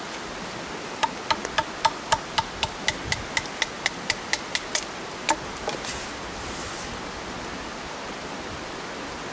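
A wooden baton rapidly knocking the spine of a trapper knife to split small pieces of wood into kindling. It strikes about four times a second, each knock with a brief ringing note, and stops about halfway through. A steady hiss of heavy rain runs underneath.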